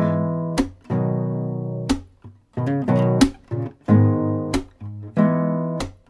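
Closing-credits music on acoustic guitar: chords strummed with sharp attacks, each left to ring and fade before the next.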